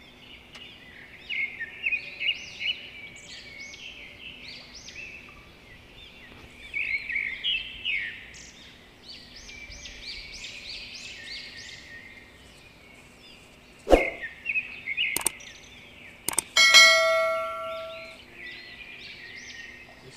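Birds chirping continuously, with many quick rising chirps. About fourteen seconds in come a few sharp clicks, then a single bell-like metallic ring that dies away over about two seconds.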